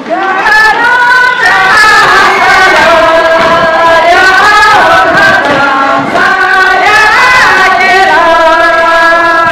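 A group of women singing a song together, holding long notes that slide from one pitch to the next.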